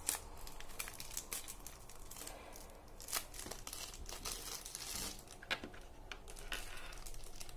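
Small clear plastic bag crinkling in the fingers as it is handled and opened, in irregular crackles with a few sharper ones.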